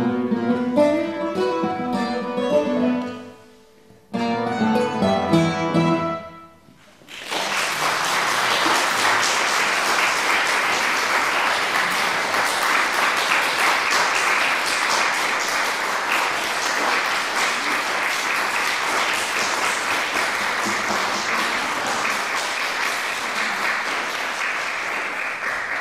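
Five classical guitars play the final phrases of a piece, ending on a last chord about six seconds in. After a moment's silence an audience breaks into steady applause.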